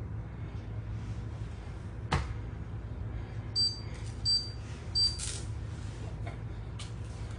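Knife and banana handling: a sharp click about two seconds in and a few faint ticks, over a steady low hum. Three short high beeps a little over half a second apart cut in midway and are the loudest sounds.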